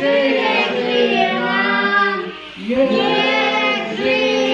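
Several voices singing a song together in long held notes, as for a birthday, with a short breath about two and a half seconds in.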